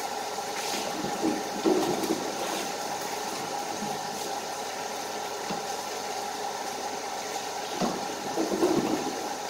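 Water running steadily, with a few knocks and clatters about two seconds in and again near the end.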